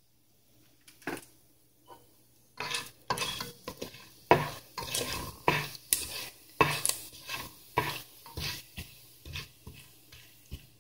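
A spoon or spatula stirring and scraping in a frying pan of whole spices, a few single clinks at first, then irregular clattering strokes from about two and a half seconds in.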